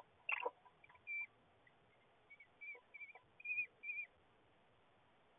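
Kestrel in a nest box giving a series of short, wavering, whistle-like calls, about half a dozen over a few seconds, after a brief knock from the bird moving against the box near the start.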